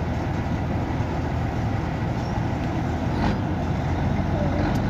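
Scania 113 truck's diesel engine running steadily while driving, heard from inside the cab: a constant low drone mixed with road noise.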